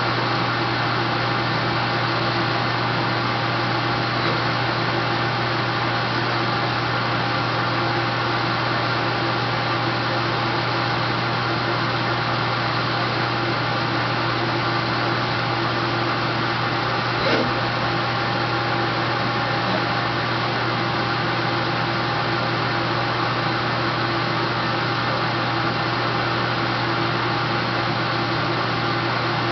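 Nardini Fast Trace CNC lathe running with a steady machine hum and whir, and one short click about halfway through.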